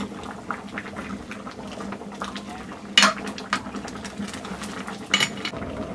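Metal ladle stirring stinging nettles boiling in an aluminium wok, with light scrapes and taps against the pan and two louder clanks, about three and five seconds in.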